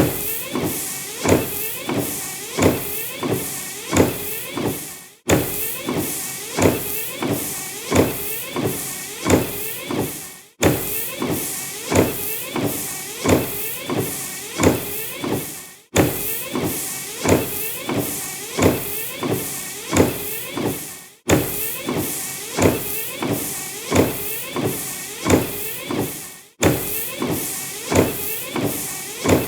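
Car windshield wipers sweeping back and forth across the glass in a steady rhythm, a little under one stroke a second, each stroke starting with a short knock. The sound cuts out for an instant about every five seconds.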